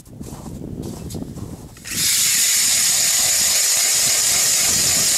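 A Ryobi 18V lithium-ion cordless drill turning an ice auger through a Clam drill plate starts about two seconds in and runs steadily as the blade bores through about 8 inches of lake ice, a loud, even hiss with a high whine. Before it starts there is a low rumble.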